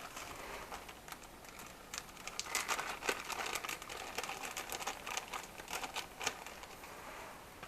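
Crinkling and a dense run of small clicks from plastic being handled, heard from about two seconds in to near the end; it comes as a small steering-wheel switch module is brought out.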